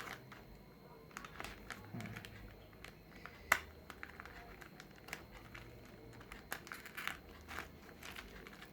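Faint crinkling and rustling of a plastic parcel being cut open with a blade, with scattered small clicks and one sharper click about three and a half seconds in.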